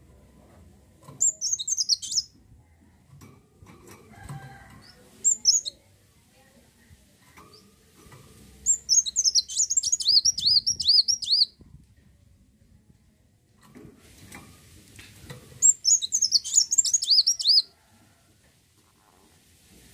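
Kolibri wulung sunbird singing: bursts of rapid, very high-pitched twittering notes, one to three seconds each, separated by pauses of a few seconds.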